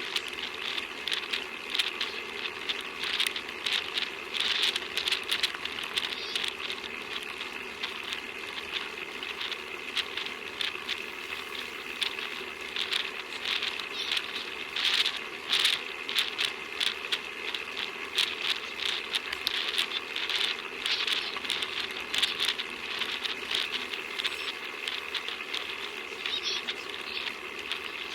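Bicycle being ridden: a steady rattle and patter of dense, irregular clicks over a continuous hiss.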